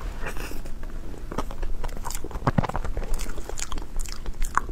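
Close-miked eating sounds: biting and chewing a soft dessert of custard, taro paste and cream, with irregular wet smacks and mouth clicks.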